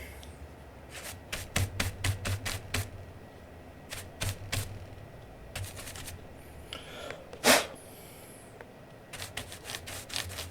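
An Aula F99 Pro mechanical keyboard being cleaned with its keycaps off: several clusters of quick, sharp clicks, with one louder click about two-thirds of the way through. Two short rubbing swishes, like a brush, come just before and just after that louder click.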